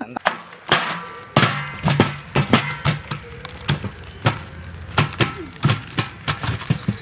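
Background music with sharp percussive hits at a fairly even pace, and a few held notes about a second and a half in.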